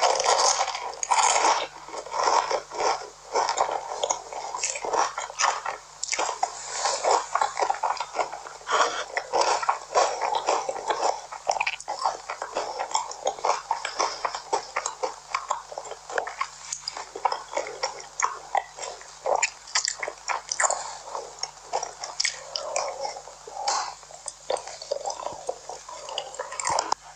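Close-miked eating: continuous chewing and biting of food, a dense run of short crackles and clicks.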